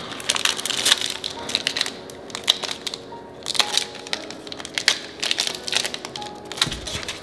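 Basketball trading cards being handled and flipped through, with crinkling of pack wrappers: an irregular run of quick clicks and rustles.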